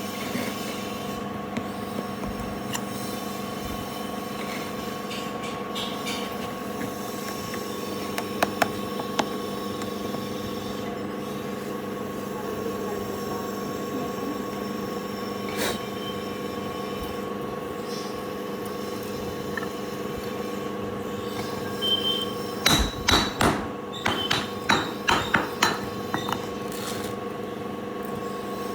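Steady workshop machine hum, with a couple of single sharp metal knocks and then, near the end, a quick run of loud metallic clanks and clinks, like metal parts being struck or knocked together.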